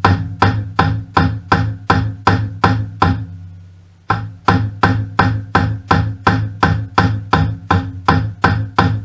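Repeated hammer blows on metal engine parts, about three strikes a second, each leaving a ringing note. The blows stop for about a second partway through, with the ringing fading away, then start again.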